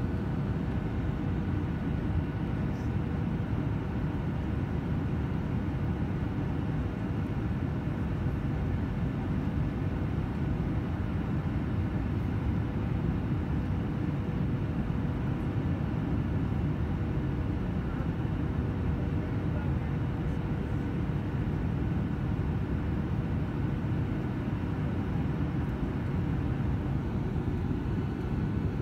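Steady cabin noise of a jet airliner in descent: a low rumble of engines and airflow, with a faint steady tone over it.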